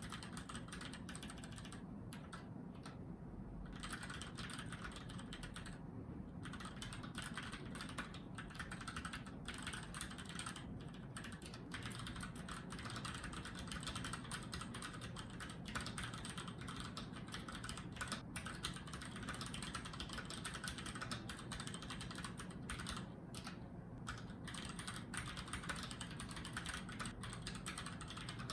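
Keychron K6 mechanical keyboard being typed on fast and continuously, a dense patter of key clicks with a few brief pauses.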